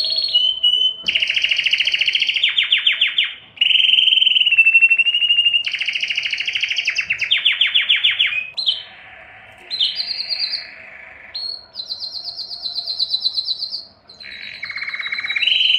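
Male domestic canary singing an excited breeding-season song. It runs as rapid rattling trills alternating with held whistled notes, the phrase changing every second or two, and goes softer for a couple of seconds about nine seconds in.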